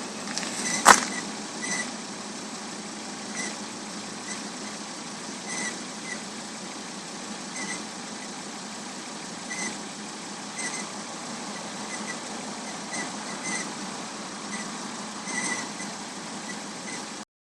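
Volvo V70 R running with a steady noise, over which a short high-pitched chirp or squeak recurs at uneven intervals of about one to two seconds: the strange sound the owner is trying to track down. A single sharp click sounds about a second in.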